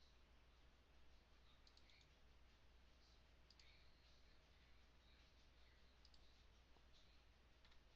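Faint computer mouse clicks, mostly in quick pairs, about every two seconds, over a steady low electrical hum.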